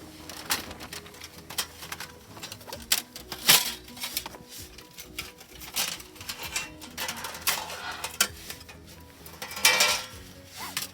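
A run of irregular clicks and knocks, the loudest about a third of the way in and again near the end, over soft background music.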